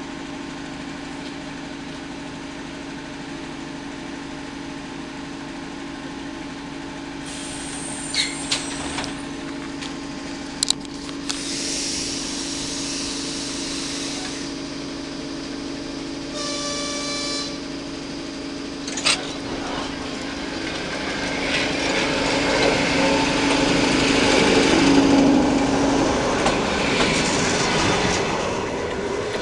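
Suburban electric train departing: a steady electrical hum with a few sharp clunks, a short horn blast lasting about a second just past the middle, then a rising rumble of wheels and motors as the train pulls away, loudest near the end.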